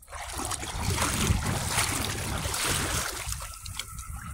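Shallow river water splashing and rushing close by for about three seconds, then dropping to a quieter trickle near the end.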